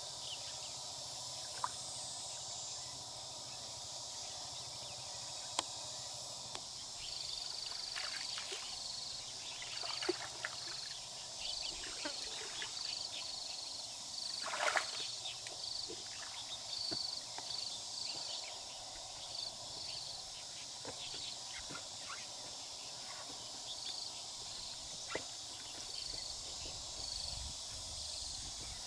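Insects chirping in short repeating pulses over a steady outdoor background, with scattered short clicks and scrapes; the loudest is a sharp scrape about halfway through.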